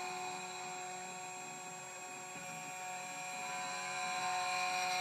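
Tank 2 Pro CNC key cutting machine's spindle running with a steady whine of several constant tones while its 0.9 mm cutter mills the tracks of a snake key blank, getting a little louder near the end.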